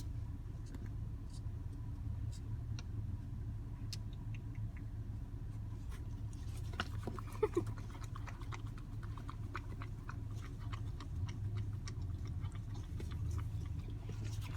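A Bouvier des Flandres puppy licking and lapping whipped cream from a small cup: quick wet smacking clicks that grow busier about halfway through, over a steady low hum.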